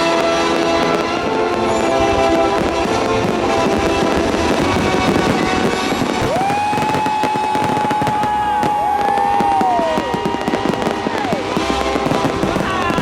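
Fireworks banging and crackling in quick succession over a pop song playing loudly on loudspeakers.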